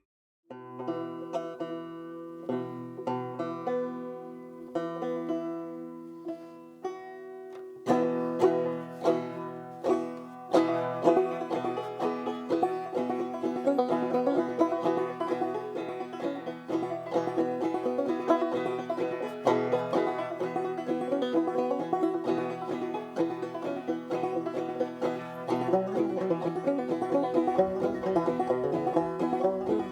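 Banjo music: sparse, slowly plucked notes at first, then from about eight seconds in a fuller, faster bluegrass-style picking.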